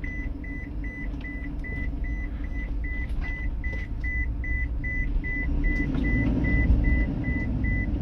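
Dashboard warning beeper in a Toyota Commuter van beeping quickly, about three short high beeps a second, as the van pulls away. Beneath it, the engine and road noise grow louder as it gathers speed.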